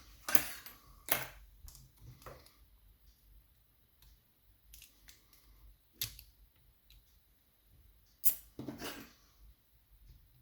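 Scattered metal clicks and light scrapes of a lever mortice lock's parts being handled during disassembly. There are a few in the first couple of seconds, a sharp click about six seconds in, and a cluster near the end.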